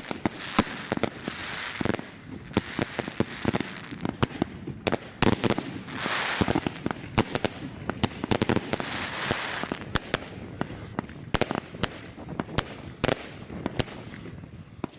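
Fireworks going off: a rapid, irregular string of sharp bangs and firecracker reports, with crackling hiss from bursting shells that swells up several times.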